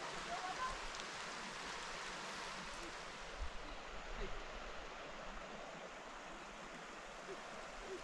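A steady, even rushing hiss of water-like noise, with a faint voice at the very start and a couple of soft knocks a little before the middle.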